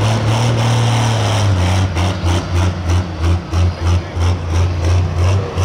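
Pro stock pulling tractor's turbocharged diesel engine running, a steady low drone that after about a second and a half turns into a rhythmic womp-womp pulsing about three times a second.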